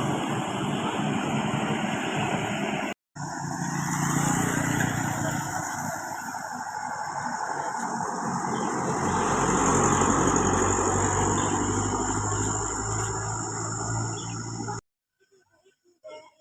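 Road noise of large vehicles, with a bus engine's low drone swelling as it comes close about two-thirds of the way through. The sound breaks off sharply for a moment about three seconds in and stops abruptly near the end.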